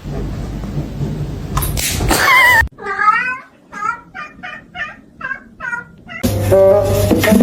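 A cat meowing: one wavering call, then a quick series of about seven short meows roughly half a second apart.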